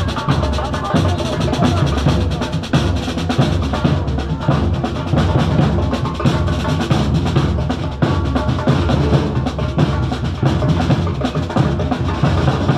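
Drum band of large marching bass drums and snare drums, beaten with sticks and mallets in a fast, dense rhythm of rapid strokes.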